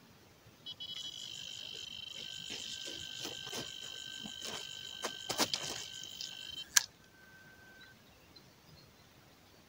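Electronic carp bite alarm sounding a continuous high tone as a fish takes line, over a run of quick clicks, with a lower second tone joining a couple of seconds in. The alarm stops with a sharp loud click about three seconds before the end.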